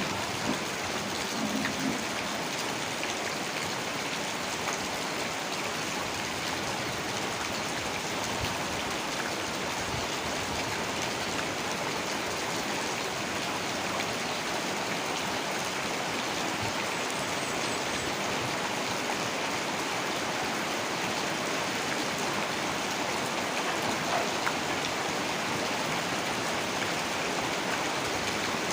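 Heavy rain falling steadily, an even hiss of many drops with no letup.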